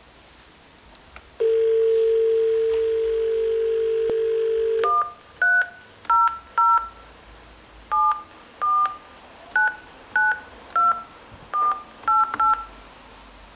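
Polycom SoundStation2 conference phone's loudspeaker playing a steady dial tone from about a second and a half in, cut off at the first keypress about five seconds in. Then about a dozen short touch-tone (DTMF) beeps follow as a number is keyed in on its keypad.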